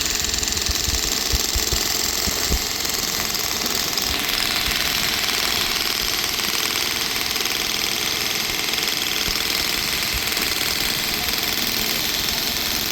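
Construction machinery running steadily at a building site, a loud continuous mechanical din with a fast, even rattle.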